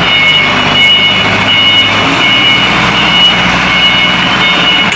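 Large forklift running and manoeuvring, with steady engine noise and a high-pitched warning beeper sounding over it.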